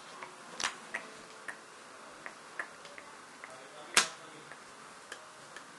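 Irregular sharp plastic clicks and taps, about ten of them with the loudest about four seconds in, from hands working the clear plastic pegs of a rubber-band loom.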